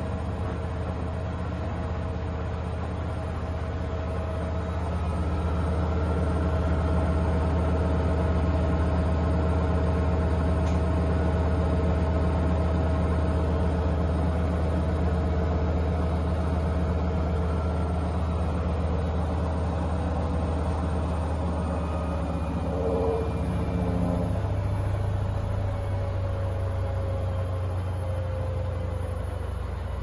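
Hoover H-Wash 500 front-loading washing machine running on its colour cycle: a steady motor hum with a high whine over it. The hum grows louder about five seconds in, and the whine slowly falls in pitch near the end, with a single bump in between.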